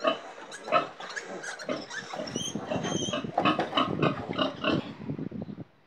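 Piglets grunting rapidly, with a few short high squeals about two to three seconds in.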